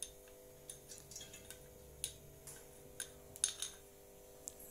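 Faint irregular light ticks and clicks of kitchenware being handled at an aluminium cooking pot as oil is poured in, the loudest about three and a half seconds in, over a faint steady hum.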